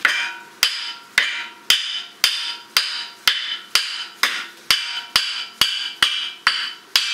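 Hammer blows struck at a steady pace, about two a second and some fifteen in all, knocking a Christmas tree's trunk loose from the stand it was wedged into. Each blow rings briefly.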